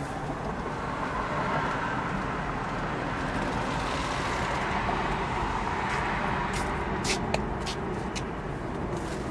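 Steady background road-traffic noise, with a few light clicks between about six and seven and a half seconds in.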